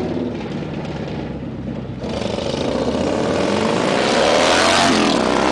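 2006 Harley-Davidson Night Train's 103-cubic-inch stroker V-twin with 10.5:1 compression, running through RB Racing pipes. It runs low for about two seconds, then accelerates toward and past the listener, rising in pitch and getting louder, with a brief dip in pitch near the end.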